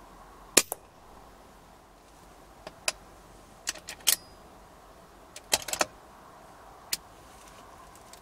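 A .22 BSA Super 10 pre-charged air rifle fires with one sharp crack about half a second in, followed at once by a fainter knock. A run of small metallic clicks and clacks follows in two clusters, then one more click: the bolt being worked to load the next pellet.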